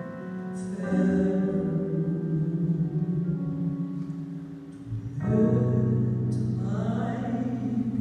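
Gospel song performed live: a solo voice singing over sustained keyboard chords. The music dips just before five seconds in, then comes back fuller and louder, with the voice wavering in vibrato.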